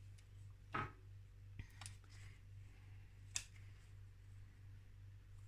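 Card stock being handled: a soft paper rustle about a second in, a couple of light clicks near two seconds and a sharper tap past the three-second mark, over a low steady hum.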